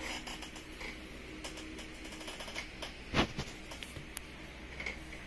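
Hand-held phone handling noise: scattered light clicks and rubs, with one louder knock about three seconds in, over a faint steady low hum.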